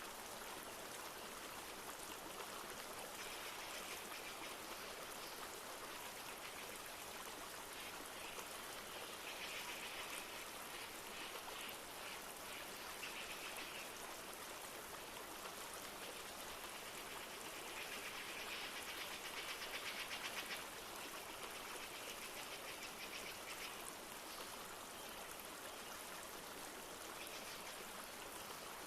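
A flowing rainforest river making a steady rushing sound. Rapid trilling calls rise above it twice, near the middle and again a little later.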